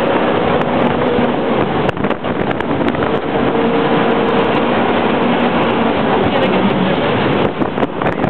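Jet boat running at speed: a steady engine drone under a loud, even rush of water and wind.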